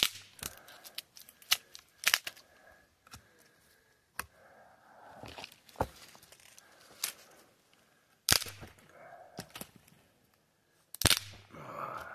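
Dry branches being snapped by hand into firewood lengths: a sharp crack every second or two, with the rustle of twigs and brush being handled between the breaks.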